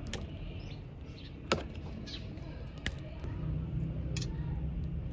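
Four sharp knocks, roughly one every second and a half, as hareesa and boiled beef are served onto a steel platter, with faint bird chirps. A low rumble comes in about three seconds in.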